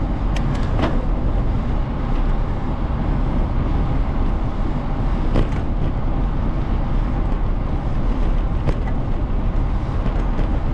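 Steady low wind rumble on the microphone of a camera carried on a moving bicycle, mixed with tyre noise on the paved path, with a few light clicks.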